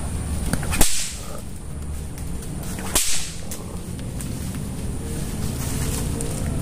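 A lash swung through the air twice, about two seconds apart: each time a quick swish ends in a sharp whip-like crack. A steady low rumble runs underneath.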